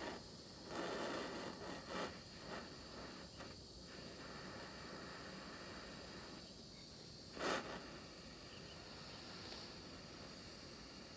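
A steady faint hiss, broken by a few light knocks and clatters of handling, the loudest about seven and a half seconds in.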